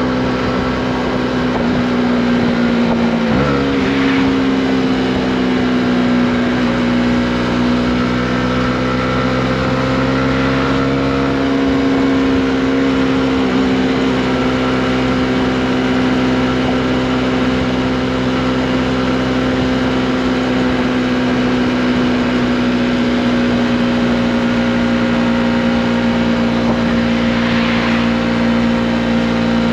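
Honda CB125R's 125 cc single-cylinder four-stroke engine running at steady cruising revs under way. The engine note drops sharply and picks back up about three seconds in, then holds nearly steady with small rises and falls.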